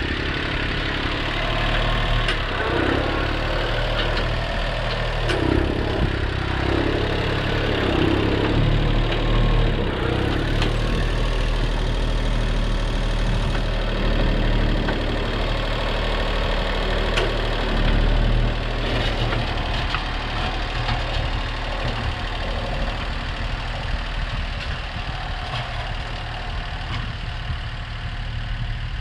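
International 234 compact tractor's three-cylinder diesel engine running steadily while its front loader bucket moves and spreads fill dirt.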